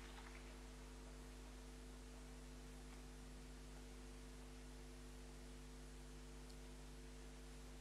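Near silence: a steady low electrical hum.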